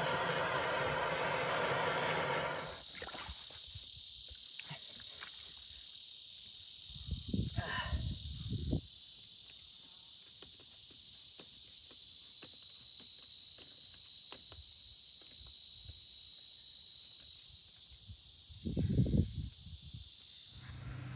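Insects keeping up a steady, high-pitched buzzing drone outdoors, with a different wavering buzz during the first couple of seconds. A few short scrapes and rustles come about seven to nine seconds in and again near the end, as poly pipe is worked onto a barbed fitting in wet mud.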